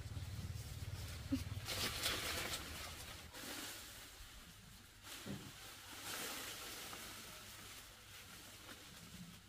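Jackfruit tree leaves and branches rustling in two short spells as someone climbs the trunk, over a low hum that stops about three seconds in.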